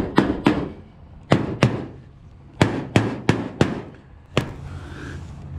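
Light hammer taps from a peening hammer, about nine sharp strikes in short groups of two to four, knocking a dent over the edge of a stainless steel flue ring to mark where to cut.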